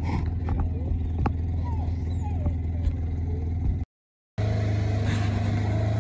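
A vehicle engine running steadily, with hunting dogs whining in short gliding calls over it during the first three seconds. After a brief dropout about four seconds in, a steady engine hum returns with a held, higher whine.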